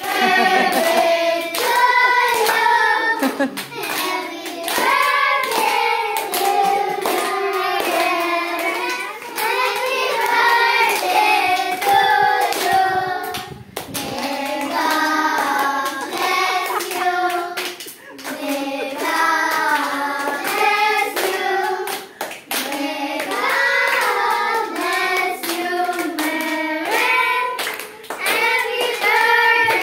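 A group of children singing a song together while clapping their hands along.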